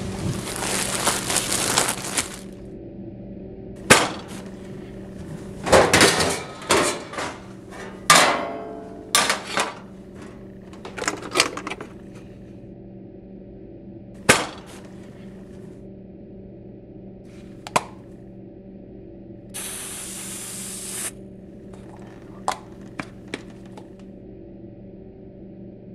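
Kitchen handling sounds over a steady low hum. A plastic bag crinkles at the start, then comes a run of sharp clicks, knocks and short rustles as food and utensils are handled and an electric stove's control knob is turned. A brief hiss comes about twenty seconds in, and a few light clicks near the end.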